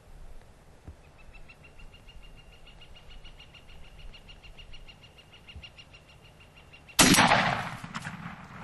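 A single shotgun blast at a turkey, sudden and very loud, dying away over about a second. Before it, a long run of high, evenly repeated notes at a steady pitch.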